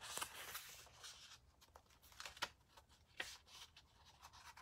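Faint rustling of a picture book's paper pages being handled and turned by hand, with a few soft taps afterwards.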